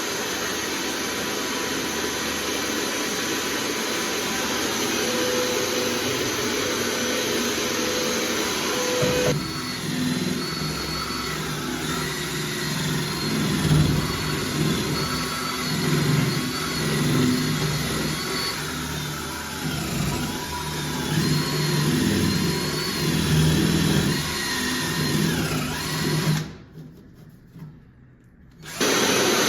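Electric drill running, boring the extra hole in the door for the lock. About a third of the way in its sound turns rougher and wavers as it bites under load. It stops for about two seconds near the end, then starts again.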